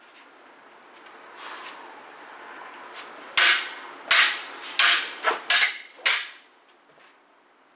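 Fencing sabre blades clashing: six sharp metallic strikes in quick succession, starting about three seconds in, each ringing briefly.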